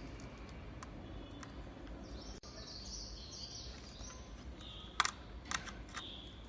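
Faint high chirping, as of birds in the background, over a low steady hum, with two sharp clicks about five seconds in.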